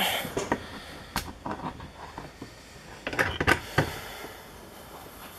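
Light clicks and knocks of a lock and tools being handled and set down on a work surface, with a quick cluster of taps a little past three seconds in.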